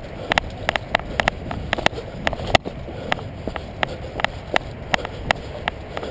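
A person running on a dirt path, with gear rattling and clicking at each stride, about three clicks a second, over wind rumble on the microphone.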